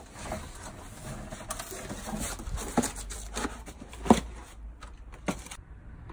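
Hand caulking gun laying a bead of windshield adhesive along the glass edge: a few sharp clicks and knocks from the gun's trigger and plunger, the loudest about four seconds in, over a low steady hum.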